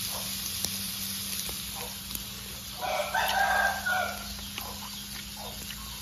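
A rooster crows once, about three seconds in, one call lasting about a second and a half, over a steady low hum.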